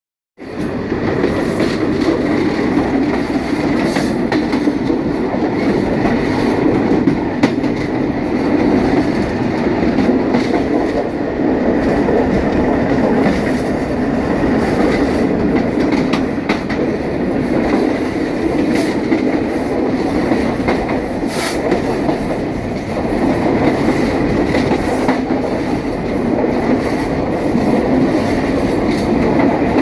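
Train running along the track, heard at the gap between two carriages: a loud, steady rumble of wheels on rail with many short, sharp clicks.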